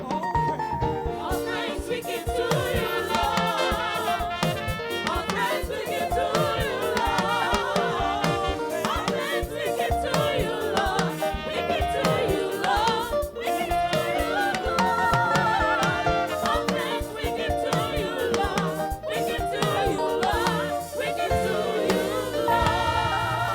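Gospel music: singing with vibrato over keyboard and drums.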